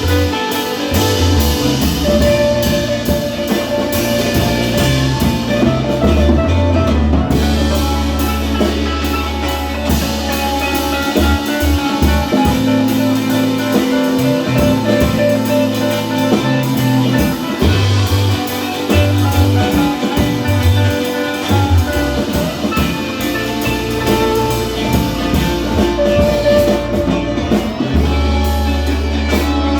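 Instrumental music with a drum kit, bass and guitar, a jazzy groove playing steadily.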